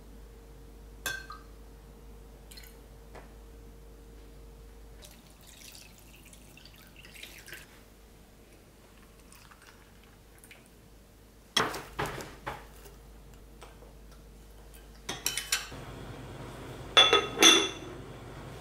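Glass and ceramic kitchenware being handled: scattered light taps, then sharp clinks about twelve seconds in, and two loud ringing clinks near the end.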